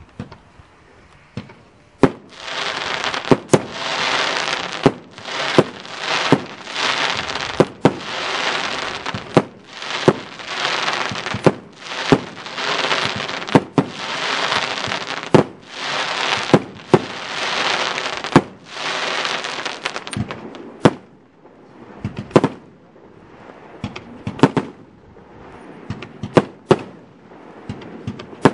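Party Power 207 firework battery firing a rapid volley of shots: sharp bangs, each followed by about a second of loud hissing noise, coming about once every second and a half. After about 20 seconds the hissing stops and only scattered sharp bangs remain.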